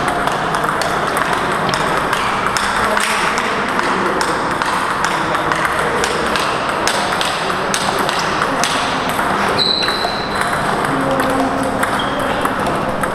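Table tennis rallying: the celluloid-type ball clicking off rubber paddles and ticking on the table in quick irregular strokes, over a steady hall background. A brief high squeak about ten seconds in.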